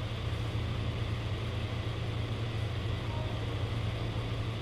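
Retekess V111 shortwave receiver hissing static from its speaker with a steady low hum, tuned to no station: it is picking up nothing.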